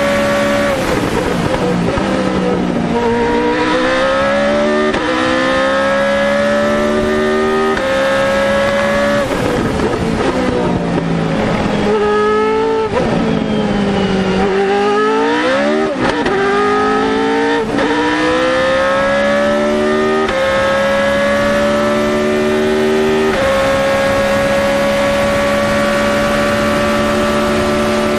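Formula Renault 3.5 single-seater's Zytek V8 engine heard onboard at racing revs. It holds a steady high note, falls away under braking, then rises through a quick run of upshifts, each gear change a sudden drop in pitch. About halfway it brakes and downshifts again, then climbs back through the gears to a steady high-pitched run near the end.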